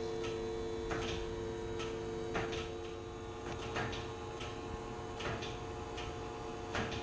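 A steady low two-note mechanical hum, with irregular light clicks and ticks every half second to a second or so.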